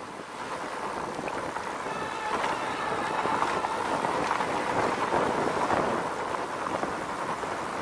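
Fat tires of an electric fat-tire bike rolling fast over a dusty dirt trail at around 25 mph, a steady rushing noise that builds over the first few seconds.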